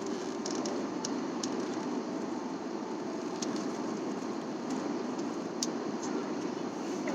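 Steady airliner cabin noise, a constant rushing drone, with a few faint scattered clicks.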